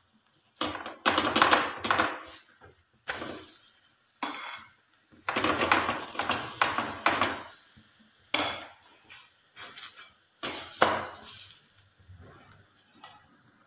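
A metal spoon scraping and clinking on a hot tawa in repeated strokes as ghee is spread over a makki roti, with the ghee hissing on the griddle.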